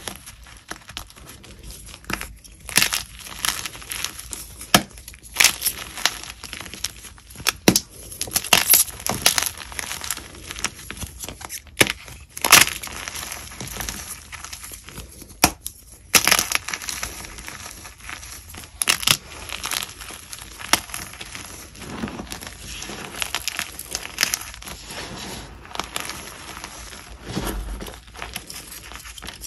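Close-up crunching of pieces of chalk being bitten and chewed: irregular crisp snaps and crumbles, several sharp ones standing out above a softer grinding.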